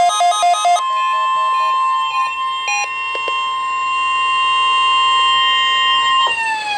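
NOAA Weather Radio warning alarm tone, a steady 1050 Hz electronic tone held for about five seconds after a quick run of beeps. Near the end its pitch begins sliding downward.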